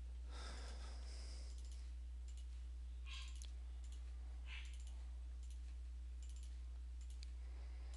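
Computer mouse clicking a few times, with a couple of short soft noises, over a steady low electrical hum.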